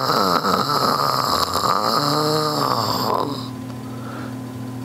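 An exaggerated comic snore, a fluttering rattle that lasts about three seconds with a drawn-out tone rising and falling in the middle, then stops.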